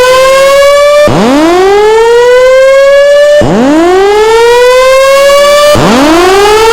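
Fire alarm voice-evacuation system sounding its whoop tone between spoken messages: loud rising sweeps, a new one starting roughly every two and a half seconds, signalling the building to evacuate.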